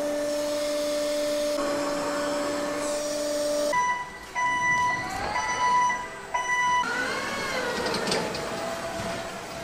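Factory machinery running: a steady low whine for the first few seconds, then a higher tone that stops and starts several times, then whines that slide up and down.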